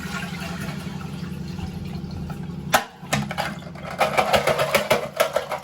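Toilet cistern flushing, water rushing steadily as it empties with the supply isolated. About three seconds in there is a sharp click, followed by a run of rapid clicks and rattles.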